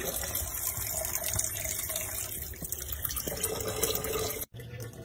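Kitchen faucet running a thin, steady stream of water into a sink, a continuous splashing hiss that cuts off abruptly near the end.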